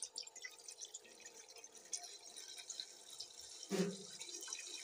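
Liquid ghee poured in a thin stream into the bottom of a metal pressure cooker, a faint steady trickle and splash. A short bit of voice comes through just before the end.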